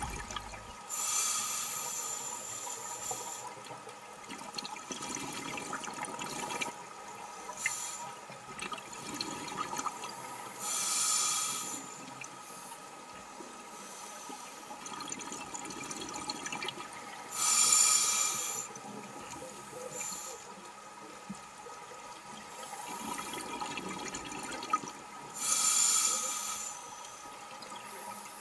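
Scuba diver breathing through a regulator underwater: exhaled bubbles rush out in bursts about every seven seconds, with a low steady water background between them.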